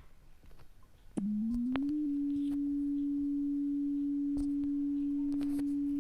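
A speaker dust remover app's cleaning tone played through a phone speaker. About a second in, one pure low tone starts, climbs in small steps over the next second, then holds steady. The app plays this sound to shake dust out of the phone's speaker.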